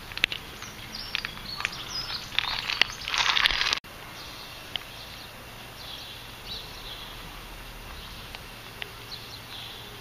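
Small birds chirping in short, quick phrases, over rustling and clicks; a louder stretch of rustling noise cuts off suddenly about four seconds in.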